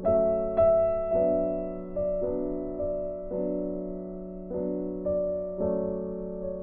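Background music: piano chords ringing on, with a new chord struck in a steady rhythm every half second to second.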